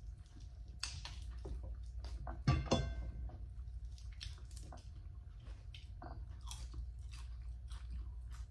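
Close-up chewing and biting of roasted meat eaten by hand, with repeated small crunches and wet smacks. A louder, brief sound stands out about two and a half seconds in, over a faint steady hum.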